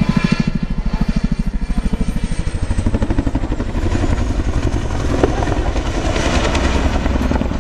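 Boeing Chinook tandem-rotor helicopter flying a display close by, its rotor blades beating in a fast, even pulse that is strongest over the first few seconds and then settles into a steadier drone.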